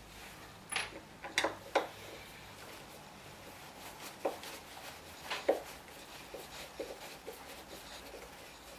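Hand screwdriver turning a screw in the corner of a machinist vise's plywood base: a few sharp clicks and knocks in the first two seconds and again around four and five and a half seconds in, then lighter ticks.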